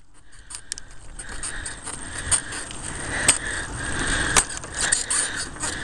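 Bicycle rolling over cracked, rough asphalt, the rolling noise growing louder, with the bike and its front basket rattling and giving a few sharp clicks.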